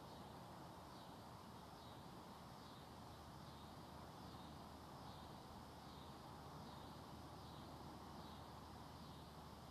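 Near silence: faint outdoor ambience with a soft, high insect chorus that swells and fades in slow regular waves, a little more than once a second.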